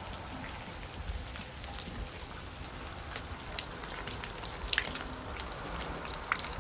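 Water dripping from the end of a metal pipe: irregular drops pattering over a faint, steady background noise.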